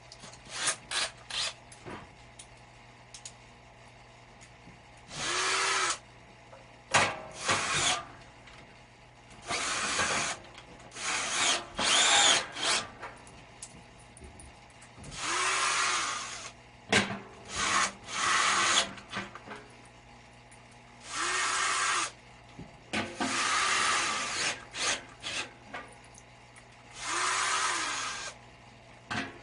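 Power drill run in repeated short bursts of about a second each, its motor whirring up and back down each time. Clicks and knocks come between the bursts, with a steady low hum underneath.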